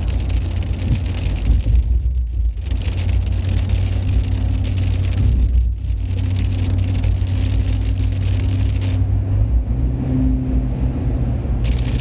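Rain falling, a steady hiss over a constant low rumble. The hiss cuts out briefly about two seconds in and again near six seconds, then for about two and a half seconds near the end while the rumble carries on.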